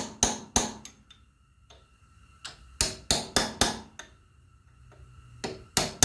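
Hammer striking a steel punch to bend a fold-over lock tab into place: sharp metal blows in quick runs, about three in the first second, a faster run of several around halfway, and more near the end, with a faint metallic ring hanging between them.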